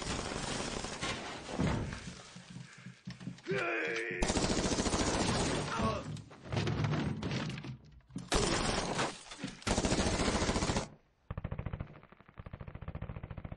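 Automatic rifle fire in several long, rapid bursts with short gaps, and a man shouting briefly about four seconds in. Near the end the fire goes on, muffled.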